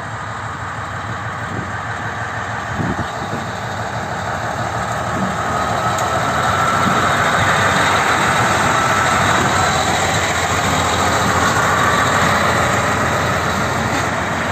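PKP Cargo SM42 diesel-electric shunting locomotive running along the track, its diesel engine and wheels on the rails growing louder over the first half and then holding steady.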